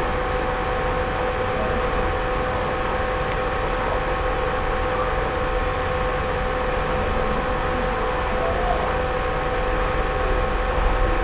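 Steady, unchanging hum and hiss with several held tones, with one faint click about three seconds in.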